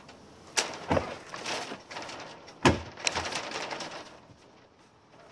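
Several sharp knocks, the loudest about two and a half seconds in, each followed by a second or so of rattling and scraping that dies away before the end.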